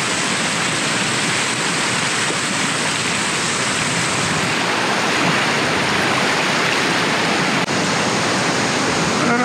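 Fast, shallow river rapids rushing steadily over a bed of cobbles and boulders, heard up close from the middle of the current.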